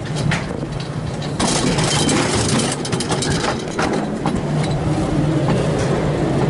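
Wiegand alpine coaster sled being hauled up the lift section of its metal track: a steady mechanical hum with a continuous rattle and many small clicks.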